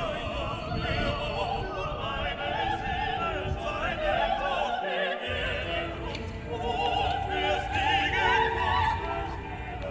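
Background music: a classical piece with an operatic voice singing with wide vibrato, over a low rumble that drops out briefly about five seconds in.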